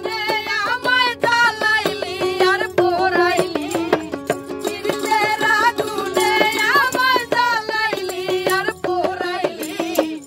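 A high voice singing a folk song over a steady drone, with hand percussion striking throughout, a small frame drum among it.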